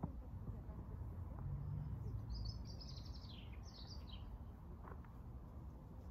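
A songbird gives a few quick, falling chirps about two to four seconds in, over a steady low background rumble.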